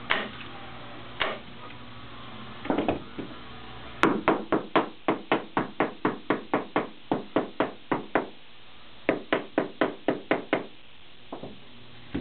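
A few single staple-gun shots, then a long run of quick hammer taps, about four a second with one short break, knocking the stapled canvas down flat onto the frame's edge as it is stretched.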